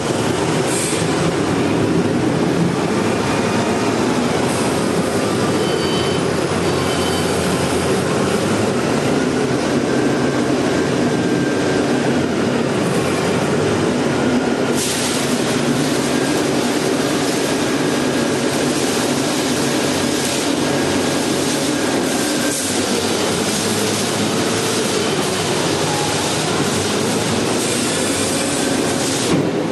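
Self-loading concrete mixer running: a loud, steady machine noise with no let-up.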